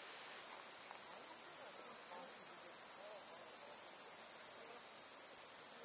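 Insect chorus, a steady high-pitched shrill that starts abruptly about half a second in and holds at an even level.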